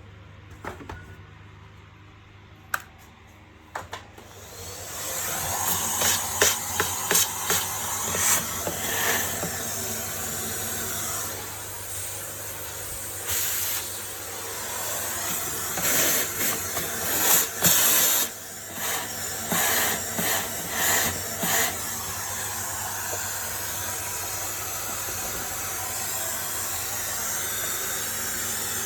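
Vacuum cleaner motor starting about five seconds in, rising quickly to a steady rushing hiss that runs on. Clicks and knocks of the machine being handled come over the first part of the run.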